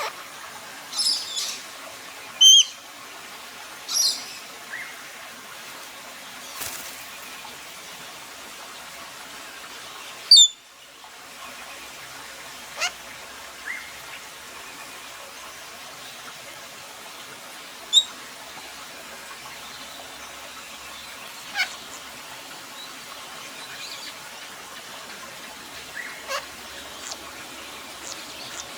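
Australian king parrot giving short, sharp, high-pitched calls, singly or in quick pairs, a dozen or so spaced irregularly over a steady background hiss.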